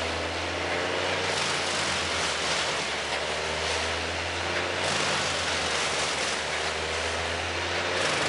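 Heavy diesel engine of forestry machinery running steadily, a constant low hum with a wide rushing noise over it and faint tones that waver slowly up and down.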